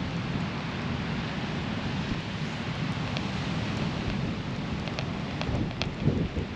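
Steady rushing noise of wind and rain with a low rumble, a few sharp ticks in the second half, and a louder gust near the end.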